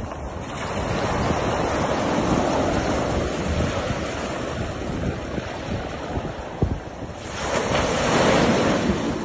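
Ocean surf washing onto a beach, with wind buffeting the microphone. A wave breaks close by near the end, the loudest moment.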